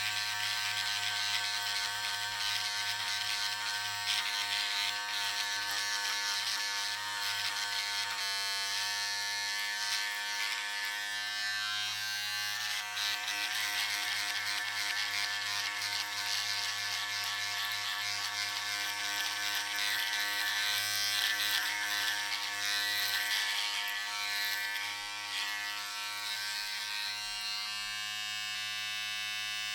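Electric razor running and shaving: a steady buzz with a high, shifting rasp that eases off near the end.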